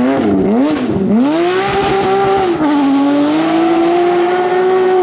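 Porsche rally car engine at full throttle: the revs dip and flare twice in quick succession, then climb hard, fall briefly at an upshift about two and a half seconds in, and hold high to the end.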